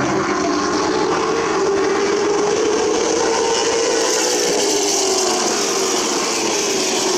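Short-track stock car engines running hard as two race cars lap the oval together. The engine note rises a little through the middle and then falls away, over a steady hiss of tyre and wind noise.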